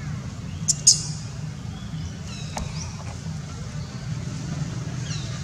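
A few brief, high-pitched squeaks from a baby long-tailed macaque, the sharpest about a second in and fainter ones later, over a steady low hum.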